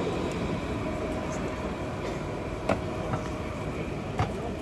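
Electric street tram running along its track, a steady rolling noise with a faint steady hum under the street hubbub. Two sharp clicks, about a second and a half apart, stand out in the second half.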